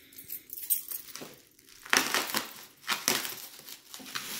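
Bubble wrap crinkling and crackling as it is pulled off a CO2 bottle, in irregular bursts that are loudest about two seconds in.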